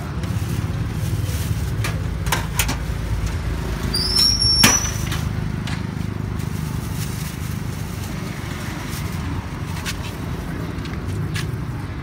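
Roadside traffic rumbling steadily, with scattered light clicks and knocks. There is a brief high squeal together with a sharp click about four seconds in.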